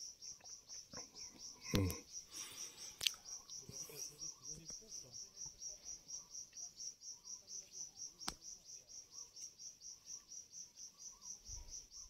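Cricket chirping steadily in a fast, even rhythm of about five high-pitched chirps a second. A few sharp clicks or knocks sound over it, the loudest about two and three seconds in.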